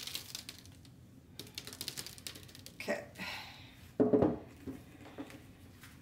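Rapid light clicks and taps, then one louder short knock about four seconds in.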